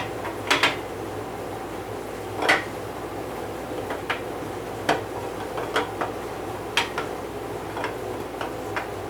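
Small metal engine parts, lifters and camshaft, clinking and tapping now and then as they are handled and set down. A steady low hum runs underneath.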